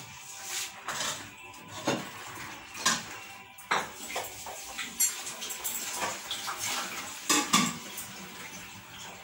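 Metal dishes, pots and a serving spoon clinking and knocking irregularly as food is dished up onto a plate, with a handful of sharper clanks.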